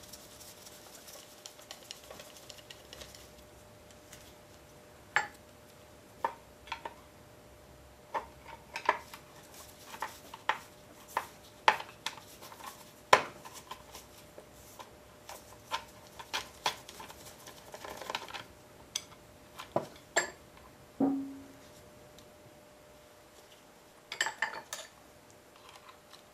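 Scattered sharp metallic clinks and taps as small steel bolts and lock washers from a Briggs & Stratton Model Y engine's backing plate are handled and set down, and a screwdriver knocks against the engine.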